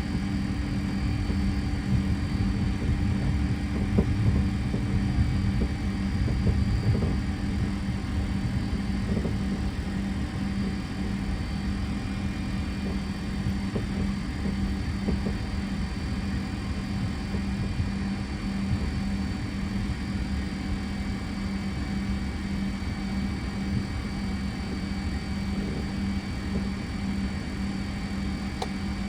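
Steady flight-deck noise of a Fokker 100 holding on the runway with its Rolls-Royce Tay turbofans at idle: a low rumble under a steady hum. A few faint knocks come in the first several seconds as the jet rolls onto the runway.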